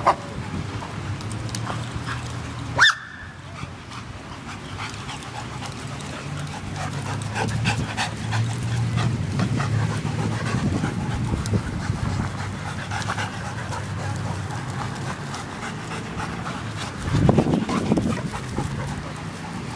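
A dog panting, with a short, sharp high sound that drops in pitch about three seconds in and a louder stretch near the end.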